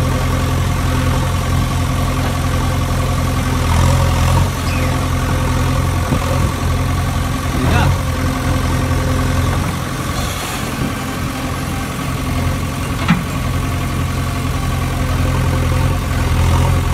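Engine idling steadily: a low, even drone that swells slightly now and then, with a sharp click about 13 seconds in.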